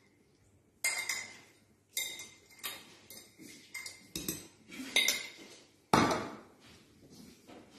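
A metal fork scraping and knocking on a ceramic plate and against the rim of a blender jug: a string of short clinks and scrapes, then a louder, heavier clunk about six seconds in.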